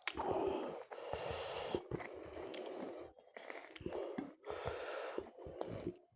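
Close-miked chewing and wet mouth sounds of someone eating, with clicks and smacks in short runs and loud breaths between them.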